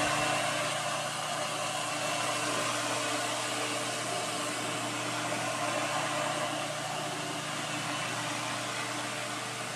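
Holmes Blizzard HAOF90 9-inch table fan running on high speed while oscillating: a steady rush of air with a faint motor hum, very loud.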